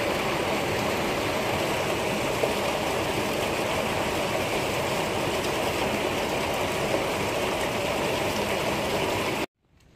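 Steady rush of running water flowing through a stone trough, cutting off suddenly near the end.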